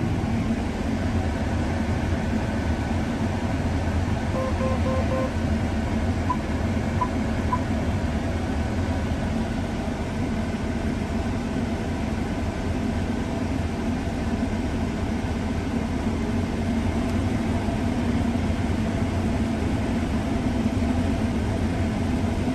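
Combine harvester running steadily while cutting wheat, a constant low machine drone. About four seconds in, a quick run of short electronic beeps sounds, followed by three single beeps.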